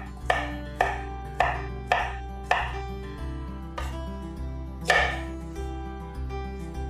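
Chef's knife chopping a zucchini on a wooden cutting board: sharp knocks of the blade on the board, about two a second at first, then a few more spaced out, the loudest about five seconds in.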